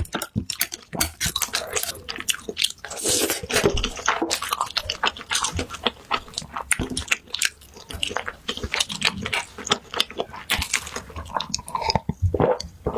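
Close-miked eating: chewing and biting stir-fried instant noodles (Buldak mixed with Jjapagetti), with many quick, irregular wet mouth clicks and smacks.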